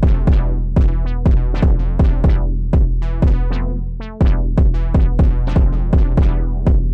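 Electronic music with a drum-machine beat, about two hits a second, over a steady deep bass. The music drops out for a moment about four seconds in and comes straight back.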